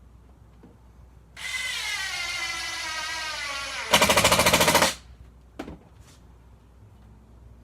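Cordless impact driver with a Robertson bit driving a wood screw. The motor spins for about two and a half seconds, its pitch sagging slightly as the screw goes in. Then the impact hammering kicks in, louder, for about a second as the screw seats, and stops. A short click follows.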